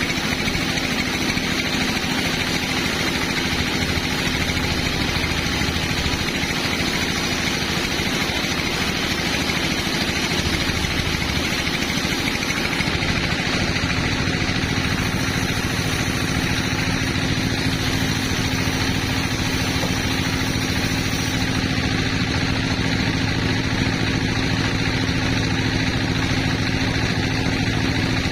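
Sawmill machinery running with a steady, engine-like drone and a constant hum.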